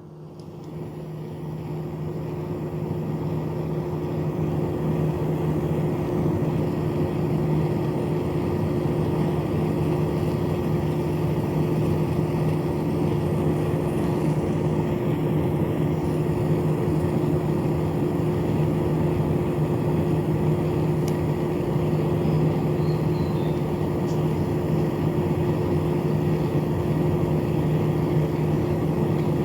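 Small battery-powered DC motor spinning a fan rotor inside a cardboard model air conditioner, with a steady hum. It rises to full speed over the first few seconds, then runs evenly.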